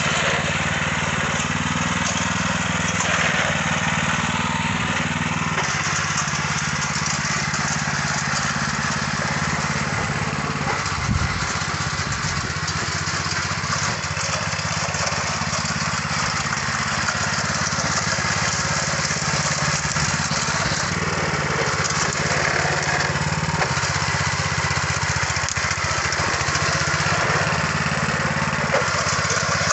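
Mini tiller (cultivator) with a small engine, running steadily as the machine is walked along behind its handlebars.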